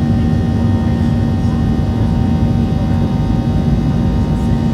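Steady drone of a Boeing 737-700's CFM56 jet engines heard inside the passenger cabin, an even rushing noise with a steady low hum through it.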